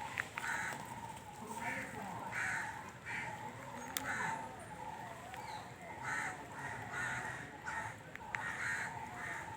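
Crows cawing over and over, many short harsh calls in quick succession, with people talking in the background.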